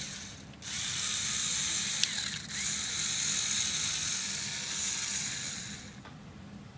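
Lego Power Functions electric motors driving the Technic gear train of a model Jeep chassis, whirring in two runs of about two and three and a half seconds, with a brief burst at the start and a sharp click about two seconds in.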